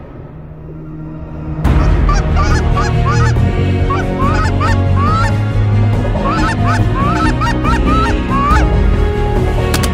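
A flock of geese honking: many short, rising, overlapping calls that start abruptly about a second and a half in and carry on densely.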